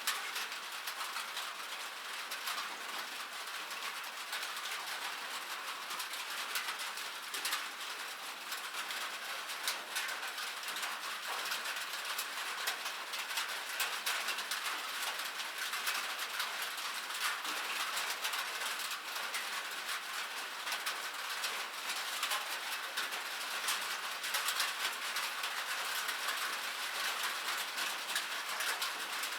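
Steady rain falling on a metal surface, a dense, even patter of countless small drop ticks with no pauses.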